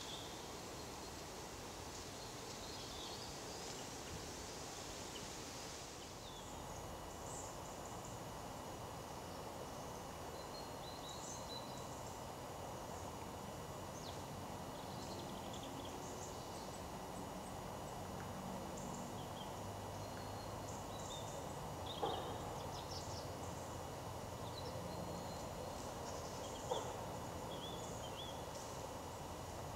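Woodland ambience: a steady background hiss with scattered short chirps of small birds, and two sharp clicks, one about two-thirds of the way through and another near the end.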